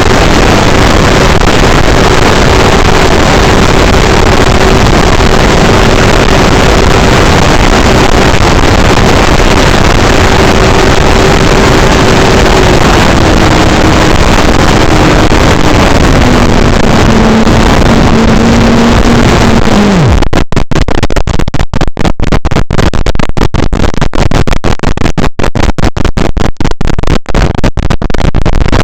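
An E-Flite Draco RC plane's electric motor and propeller whining at a steady pitch under heavy wind noise on the microphone. The pitch steps down twice as the throttle comes back, then the motor cuts off about twenty seconds in. Choppy, gusting wind noise follows.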